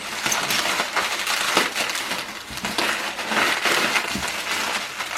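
Plastic packing bubbles being handled and crumpled while a package is unpacked: a continuous crinkling crackle of many small clicks, with one sharp snap at the very end.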